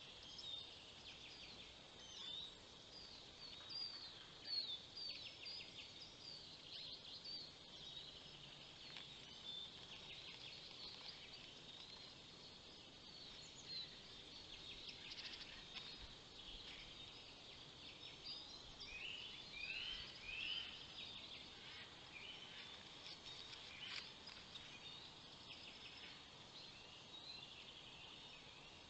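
Faint chorus of small songbirds in a forest: many short, high chirps and trills overlapping, with a run of quick repeated rising notes a little past the middle, over a soft steady hiss.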